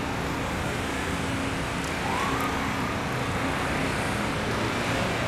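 Steady city street traffic noise, with a faint short tone that rises and falls about two seconds in.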